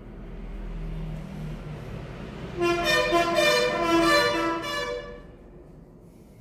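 A vehicle horn honks for about two and a half seconds, its pitch stepping between a few tones. Under it, vehicle noise swells and then fades away.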